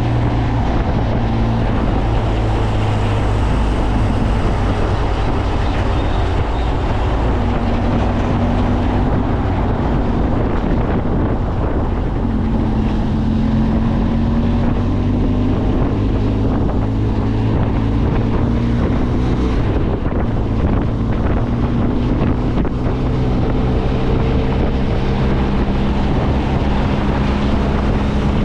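Benelli TRK 502X's parallel-twin engine running at a steady pace on the move, its pitch drifting only slightly, with wind noise on the microphone.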